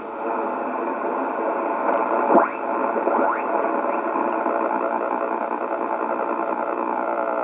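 Yaesu HF transceiver receiving on single sideband: steady hiss with a buzzy interference noise, and two whistling tones that sweep quickly upward in pitch about two and three seconds in.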